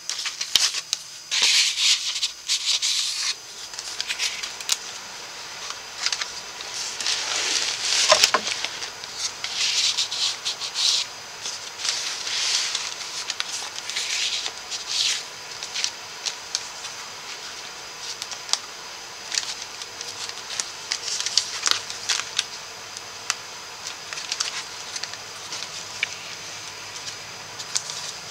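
Cardstock flaps and pages of a handmade paper scrapbook folio rustling and rubbing as they are opened and handled, in uneven bursts with small taps and clicks.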